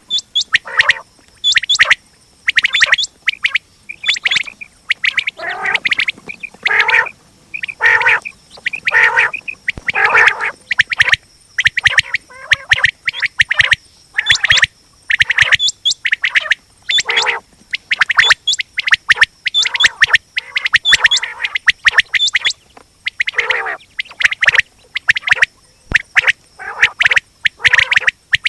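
Quail calling over and over: short harsh calls in quick runs with brief pauses between them.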